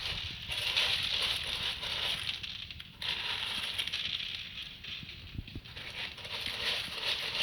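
Ferret digging frantically in a bowl of food, a scratchy crackling rattle as the food is scraped and scattered, with a few sharp clicks and brief lulls.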